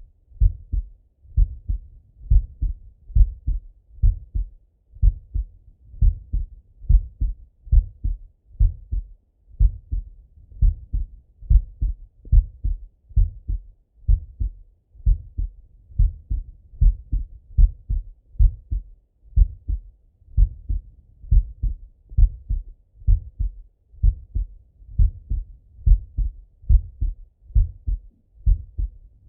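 A man's heart beating steadily, heard through a stethoscope on the chest: regular paired thuds, each a louder first sound followed by a softer second.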